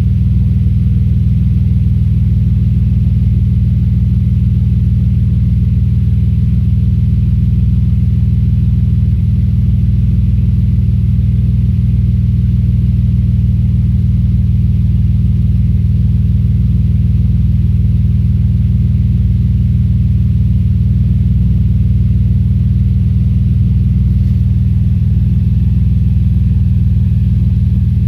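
Audi S4 B5's 2.7-litre twin-turbo V6 running steadily at a constant engine speed with a misfire, a low, even engine note with no revving.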